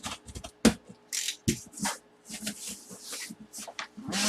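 Packaging being handled and opened: irregular rustles, scrapes and clicks of cardboard and plastic.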